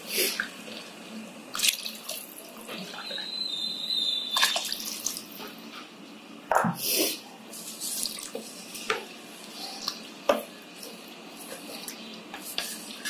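Water poured from a measuring cup into an electric pressure cooker's inner pot of rice and vegetables, splashing, with scattered knocks and clinks of the cup and pot. A brief high tone sounds about three seconds in, and a spoon stirs in the pot near the end.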